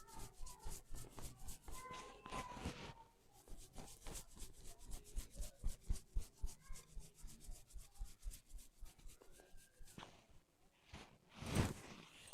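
Hands rubbing and tugging hair against the scalp in a hair-cracking head massage: a fast, rhythmic run of short crackling rubs, about five to eight a second, with one louder sound near the end.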